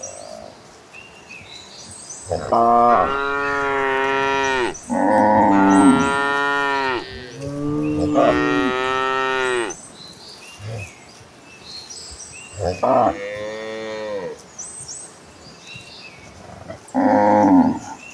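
Cattle mooing: three long, drawn-out moos back to back, then two shorter ones later, each call dropping in pitch as it ends.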